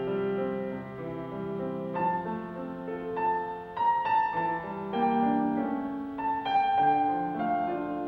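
Slow background piano music, with held notes and chords changing about once a second.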